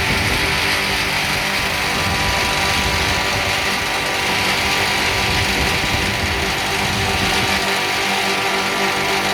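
Four-sided wood milling machine, driven by four 5.5 kW electric motors, running steadily with a constant hum and hiss.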